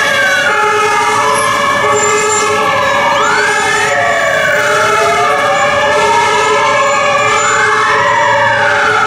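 Sirens of responding fire engines: the loudest is a wail that rises quickly and falls slowly, cycling about every four seconds, over the steady tones of other sirens.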